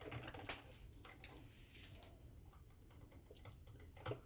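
Faint, irregular ticks and clicks from a small drip coffee maker as its metal heater warms the water, a few sharper clicks among them.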